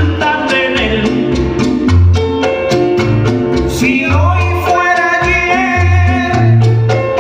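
A male singer performing a Latin song with a band, over a steady bass line and light percussion.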